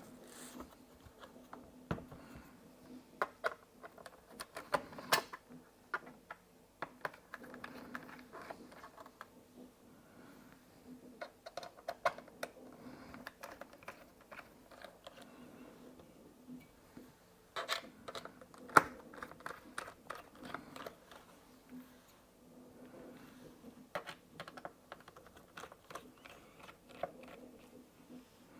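Scattered small clicks, taps and scrapes of a screwdriver and tiny screws being worked out of a MacBook Air's bottom case, with a couple of louder clicks.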